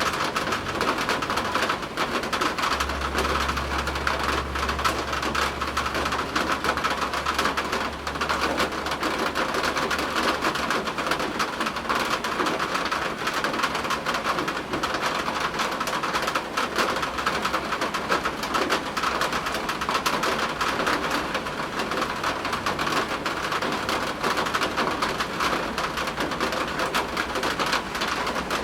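Steady heavy rain with a dense patter of drops, and a low rumble of thunder from about three to eight seconds in.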